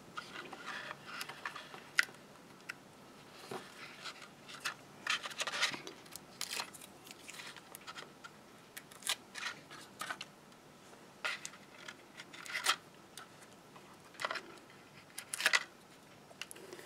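Quiet rustling and light tapping of white card in scattered short bursts as fingers handle and press down a concertina-folded box card and its sticky foam pads.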